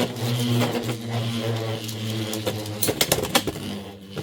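Two Beyblade X tops, Blackshell and Wizard Arrow, spinning in the stadium with a steady whirring hum. About three seconds in there is a quick run of sharp clacks as they collide.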